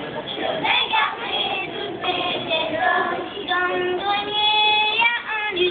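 Children singing a song, with a long held note about four seconds in.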